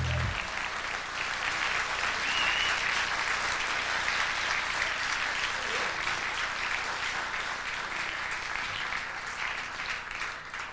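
Audience applauding and cheering at the end of a song, with a short whistle about two seconds in; the band's last note cuts off right at the start and the applause dies away near the end.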